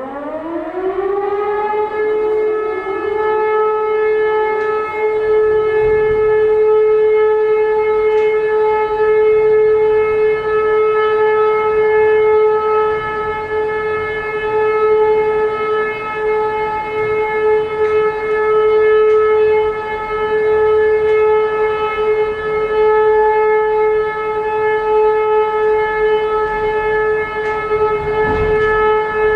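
E57 electromechanical civil-defence siren winding up to full speed in the first couple of seconds, then holding one steady, loud tone for a test alarm.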